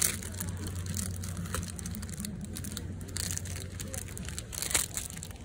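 Plastic packaging of stick-on bag hooks crinkling as the packs are handled, in short crackles several times, over a steady low hum.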